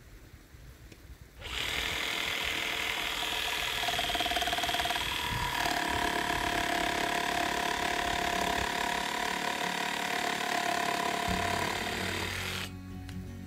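A motorized tool starts suddenly about a second and a half in and runs steadily with a whine of two steady tones over a hiss, stopping near the end.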